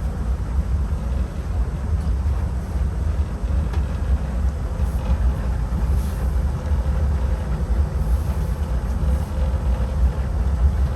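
A boat's twin engines running, a steady low rumble.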